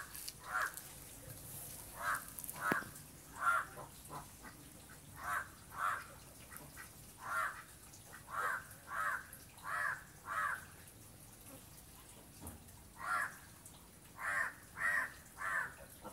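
A crow cawing over and over, in runs of two or three short caws about half a second apart, with pauses of a second or more between runs.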